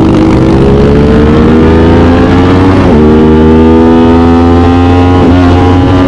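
Aprilia RS 660's parallel-twin engine through an SC Project CR-T exhaust, accelerating through the gears. The pitch climbs slowly and drops sharply at an upshift about three seconds in and again about five seconds in, then climbs again each time.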